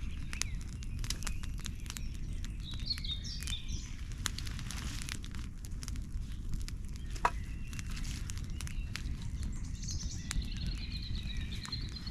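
Small birds chirping in two spells, a few seconds in and again near the end, over a steady low outdoor rumble, with scattered small clicks and crackles throughout.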